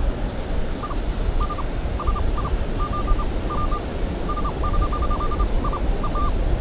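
Minelab Manticore metal detector giving short high beeps in quick clusters as the coil sweeps over a buried target, over a steady rush of surf and wind.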